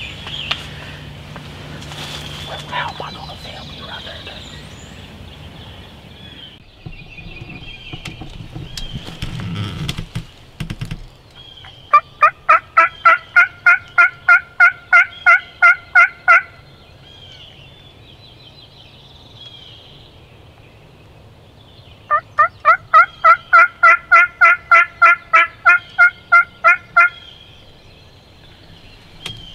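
Two long runs of loud turkey yelps, about four evenly spaced notes a second, each run lasting about four seconds and sounding close. Before them come shuffling and a few knocks from clothing and gear being handled.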